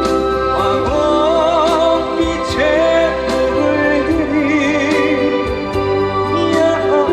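Trot song backing music: a lead melody with vibrato over a steady drum beat, playing through an instrumental break between verses.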